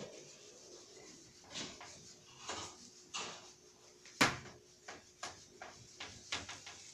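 A whiteboard eraser rubbing across a whiteboard in a series of short wiping strokes, with a sharp knock about four seconds in.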